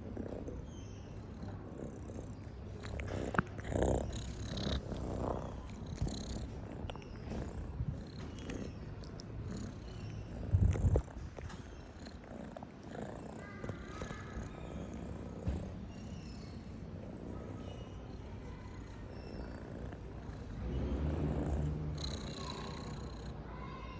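A domestic cat purring steadily, a little louder for a second or two near the end. A brief loud bump about ten and a half seconds in, likely handling noise on the microphone.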